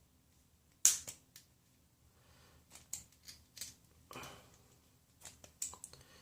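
Scissors snipping off the excess cotton wick at the ends of a vape coil: a series of short sharp snips and clicks in little clusters, the loudest about a second in, with a soft rustle near the middle.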